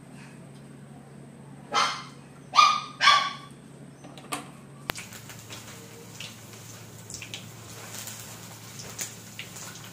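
A dog barks three times in quick succession, about two seconds in. After a cut about five seconds in, hot oil sizzles and crackles as a vegetable fritter deep-fries.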